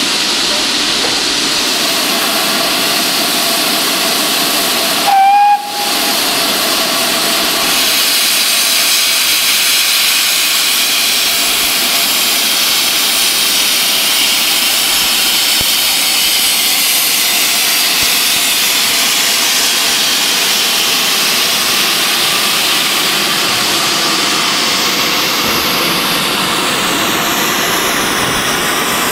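Steam hissing steadily and loudly from GWR Saint 4-6-0 No. 2999 'Lady of Legend' as it stands in steam. A brief, clear whistle note sounds about five seconds in.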